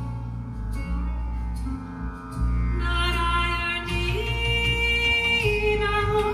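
Background music with singing over a steady low bass.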